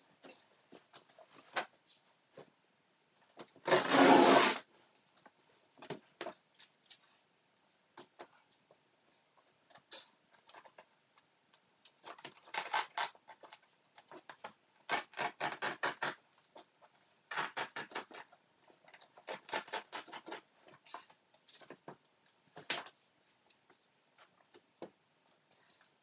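Old carpet and its backing being torn up from a floor by hand: bursts of ripping and crackling as the covering pulls loose. There is one loud rustling burst about four seconds in.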